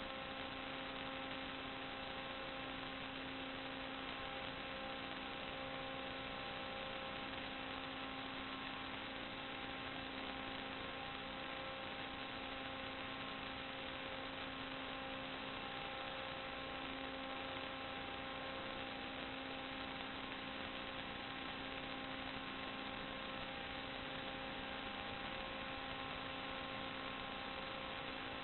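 Steady electrical hum over a constant hiss: several unchanging tones sit in a flat noise that stops above about 4 kHz, with no change in level or pitch.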